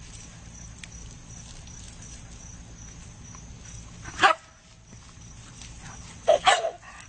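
A dog barking: one loud bark about four seconds in, then two quick barks near the end.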